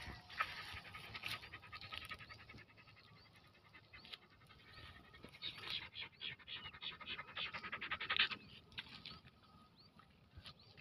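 Greyhound panting in quick, even breaths, heavier for a few seconds past the middle.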